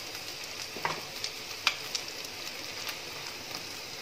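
Chicken strips with shredded cabbage, capsicum and carrots sizzling in oil in an aluminium kadhai: a steady hiss with a few sharp crackles.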